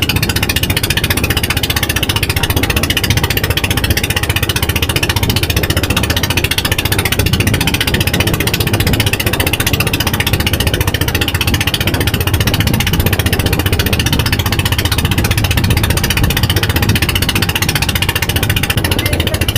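Bangka outrigger boat's engine running steadily under way, loud and unchanging, with a fast even beat.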